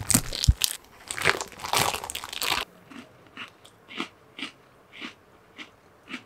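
Plastic cookie wrapper crinkling loudly as it is handled. From about two and a half seconds in, a crunchy cookie is chewed with the mouth close to the microphone, about two quiet crunches a second.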